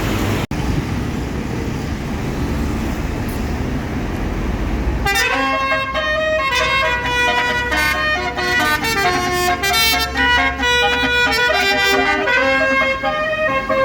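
Road noise from bus engines and traffic. About five seconds in, a bus's basuri telolet horn starts playing a fast melody of rapidly changing notes over the engine rumble.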